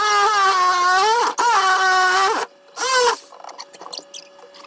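Oscillating multi-tool cutting into a painted wooden cabinet face frame: a steady high whine whose pitch wavers as the blade loads in the cut. It stops about two and a half seconds in, gives one more short burst, then only faint clicks and knocks follow.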